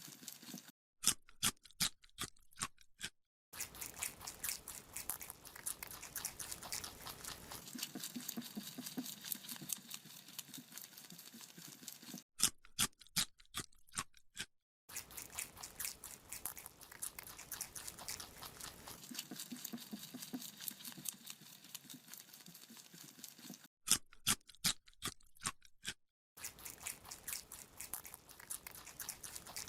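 Rabbit chewing a carrot: rapid, crisp crunching bites, with three short stretches where separate louder crunches stand out against silence.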